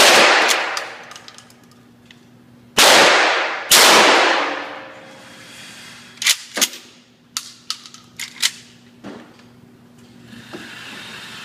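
Pump-action shotgun firing three loud shots in an indoor range, each with a long echoing tail; the first comes at once, the other two about three seconds later, less than a second apart. Lighter clicks and knocks follow a few seconds after.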